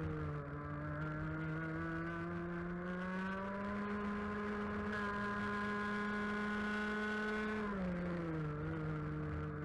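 A 125cc two-stroke TaG kart engine at racing speed, heard onboard. Its revs climb about three to four seconds in and hold steady, then fall sharply near the end.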